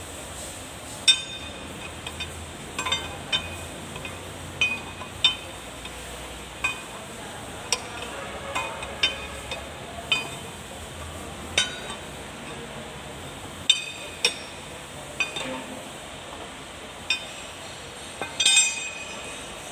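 Steel spanner clinking against the nut and gear housing of a tractor's rear axle as it is worked and repositioned: sharp metallic clinks with a brief ring, one or two a second at irregular intervals, with a quick cluster near the end.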